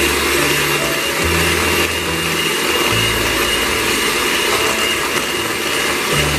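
Electric hand mixer running steadily at high speed, its beaters whipping cream in a stainless steel bowl toward stiff peaks. The whirring motor carries a thin, steady high whine.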